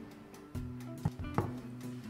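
Background music with guitar and steady held notes, with two short clicks about a second in.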